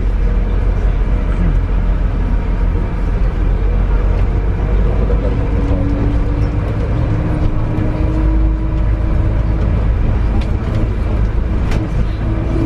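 Cabin noise of an airport apron bus driving: a steady low engine and road rumble, with a faint whine that rises slightly in pitch in the middle.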